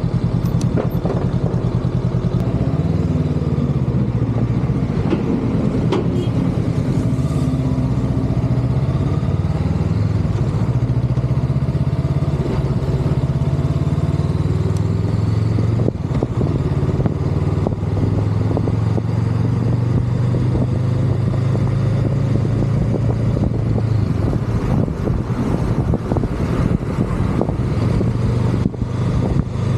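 Honda Rebel 500's parallel-twin engine running while riding through city traffic, its pitch rising and falling with changes of speed, over wind and road noise.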